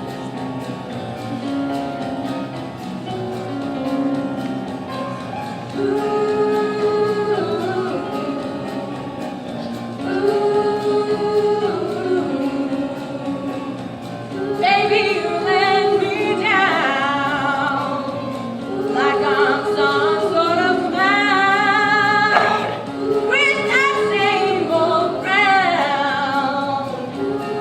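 Singers performing a musical-theatre song, holding long sung notes. About halfway in, stronger, higher voices with vibrato come in and the singing gets louder.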